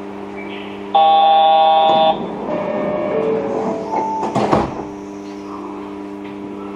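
Yurikamome train standing at a station: a loud electric buzzer sounds for about a second, then a few short chime tones at different pitches and a brief clatter about four and a half seconds in, over the steady hum of the train's equipment.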